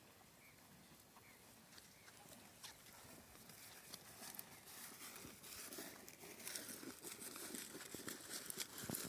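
A Gir bull eating concentrate feed: faint crunching and rustling clicks that grow denser and louder about halfway through.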